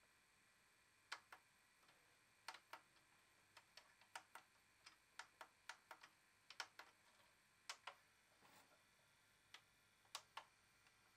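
Faint, irregular clicking and ticking, about two clicks a second at uneven spacing over a low hiss, while a water-damaged, sellotape-spliced videotape plays in an opened-up VCR.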